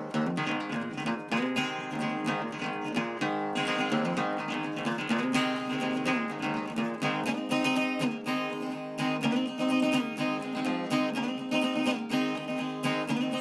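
Acoustic guitar music, plucked and strummed in a quick, busy pattern.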